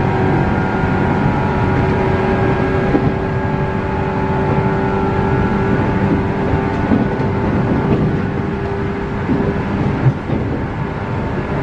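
JR West 117 series electric train heard from inside the carriage at speed: a steady whine from its DC traction motors, several held tones over the rumble of the wheels on the track.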